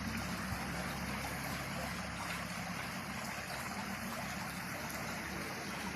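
Water pouring and splashing steadily down an artificial garden waterfall, with a faint low hum underneath.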